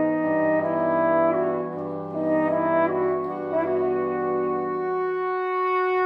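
Wind ensemble music with the French horn prominent, playing slow held chords whose upper voices change note about every second. A low held note drops out about five seconds in, leaving a single middle note sustained.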